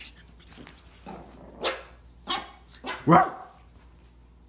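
Pug puppy barking in several short yips as it plays.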